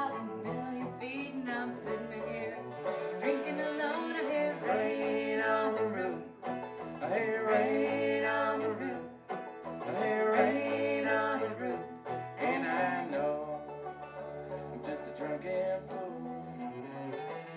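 Live acoustic string band playing an instrumental passage in a country/bluegrass style, with banjo and guitar prominent and a sustained melody line carrying over the picking.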